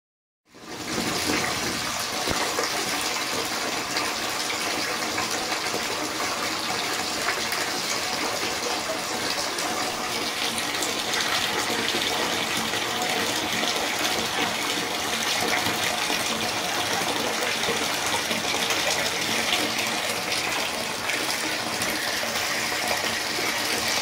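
Water running steadily into a bathtub: a constant gushing hiss.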